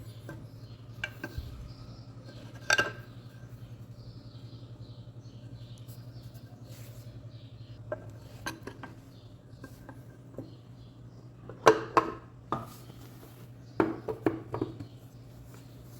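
Scattered metallic clinks and knocks of tools and metal engine parts being handled during motorcycle engine reassembly, a few louder ones near the middle and later, over a steady low hum.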